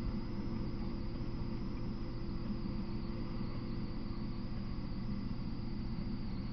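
Steady electronic hiss from a trail camera's microphone, with a constant high whine and a low hum and rumble beneath it; nothing starts or stops.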